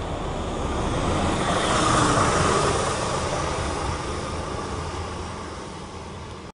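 City bus driving past close by and away over a speed hump. Its engine and tyre noise swell to a peak about two seconds in, then fade as it pulls away.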